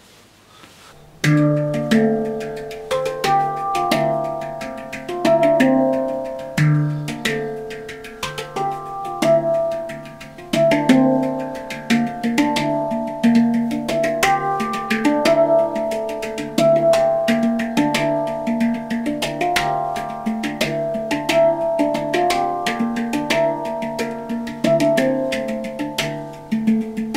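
Steel handpan, a 10-tone drum in D minor, played with bare hands: a flowing melody of ringing, sustained notes over a repeating deep bass note, with quick finger taps between strikes, starting about a second in.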